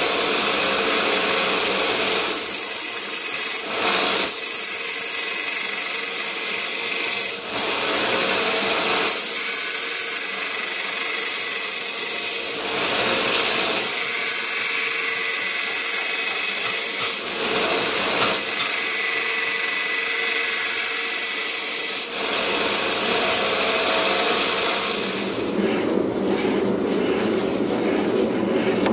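Power grinder grinding a steel knife blade by stock removal, a steady high hiss in long passes of a few seconds each, with brief breaks between passes as the blade is lifted off.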